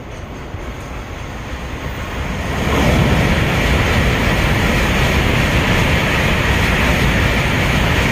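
Tokaido Shinkansen bullet train approaching and then running past close by. A rumble grows over the first few seconds, then about three seconds in it becomes a loud, steady noise as the train goes by.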